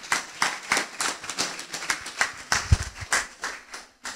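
A string of irregular sharp clicks and knocks, several a second, with a few dull thumps near the end.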